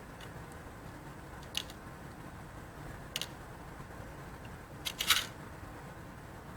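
A few light clicks of small hardware and tools being handled on a workbench: one about a second and a half in, another about three seconds in, and a quick cluster of clicks, the loudest, about five seconds in.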